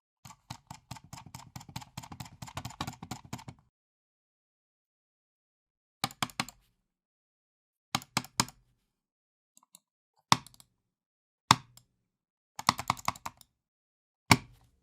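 Computer mouse handled angrily: a fast run of hard button clicks lasting about three and a half seconds, then short bursts of clicks and single sharp, loud clicks with pauses of a second or two between them.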